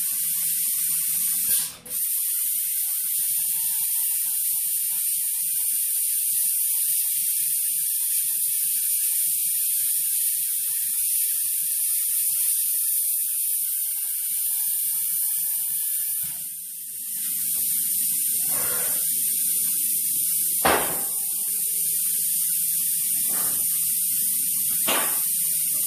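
Hypertherm plasma cutter hissing steadily as it cuts through the steel wall of an emptied CO2 tank, breaking off briefly twice. Several sharp metal clanks near the end as the cut section is handled.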